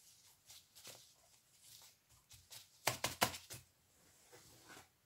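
Gloved hands rustling and patting seed compost in a plastic tray. About three seconds in comes a quick run of sharp taps, the loudest part.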